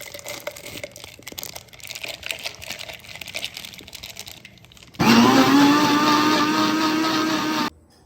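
Light crackling and clicking, then about five seconds in an electric blender starts up loudly. Its motor pitch rises a little as it spins up, and after about two and a half seconds it cuts off suddenly.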